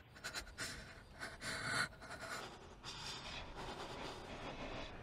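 A person breathing audibly in short, uneven breaths, with no voice.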